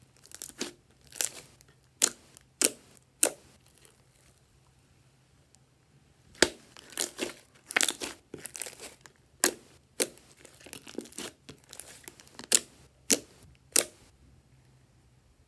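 Thick green slime being squeezed, poked and stretched by hand: irregular sticky pops and crackles. They come in two runs with a quiet gap of a few seconds between them, the loudest pop about six seconds in.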